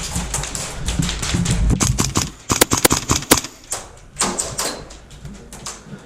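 Rapid airsoft gunfire in a small room: a dense run of sharp clacks, with a few louder cracks between about two and a half and three and a half seconds in, thinning out near the end.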